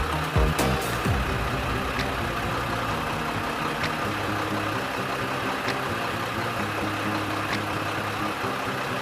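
A truck engine running steadily at idle, with a faint click about every two seconds.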